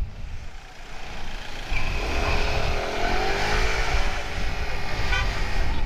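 Small 49cc scooter engine pulling away: it is quiet at first, then about two seconds in it picks up with a rising whine and settles into a steady run.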